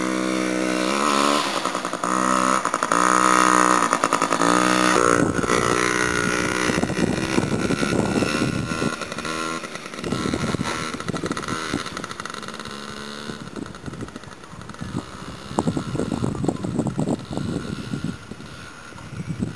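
Child's small dirt bike engine revving up and down in quick bursts about four times, then running on more steadily and growing fainter as it rides away.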